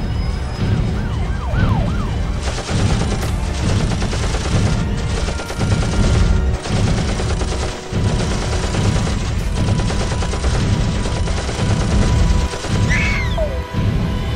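Layered action sound effects: a heavy pulsing rumble throughout, with wailing siren-like pitch glides near the start and again near the end over a hissing, crackling noise layer.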